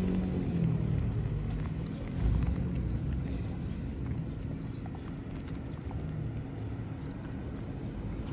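Pit bull chewing and tearing at grass, with scattered small crunching ticks over a low rumble that swells about two seconds in.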